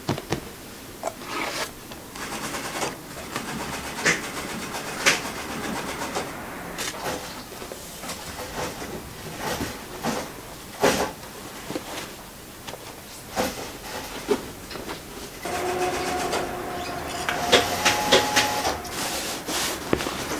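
Fabric rustling and being shifted about by hand, with scattered light clicks and knocks. A steady hum with quick ticking comes in for a few seconds near the end.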